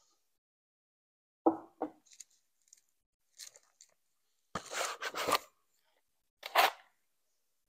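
Cardboard Elite Trainer Box and its packaging being handled and opened by hand: separate short rustles and scrapes with quiet gaps between them, the loudest about a second and a half in, around five seconds in and again near the end.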